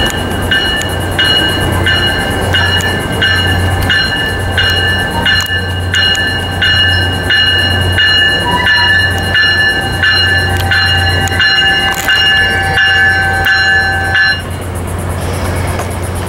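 Tri-Rail commuter train arriving with its bell ringing at an even beat, about three strikes every two seconds, over the low rumble of the train. The bell stops near the end.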